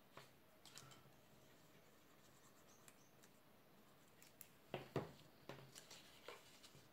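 Faint handling of cardstock as a small paper box is folded: soft creases and rustles with a few short clicks and taps, the loudest pair a little before five seconds in.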